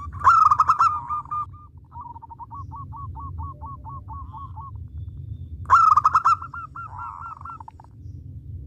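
Zebra dove (perkutut) singing its cooing song twice. Each bout opens with a loud rush of notes and runs on into a string of quick, evenly spaced, rolling coos. The first lasts about four and a half seconds, and the second starts about six seconds in.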